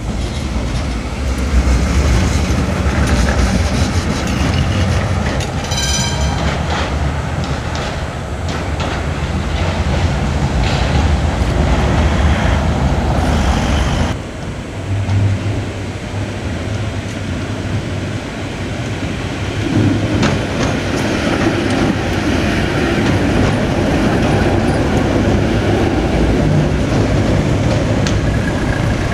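City trams running on street track close by, a steady low rumble of motors and steel wheels on the rails. A brief high-pitched tone sounds about six seconds in, and the sound changes abruptly about halfway through.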